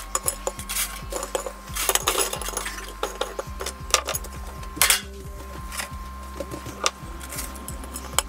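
Chips and a crumbed snapper fillet being set down on ceramic dinner plates by hand and with a plastic slotted spatula: irregular light taps and clinks on the plates, with a few sharper knocks, over a steady faint hum.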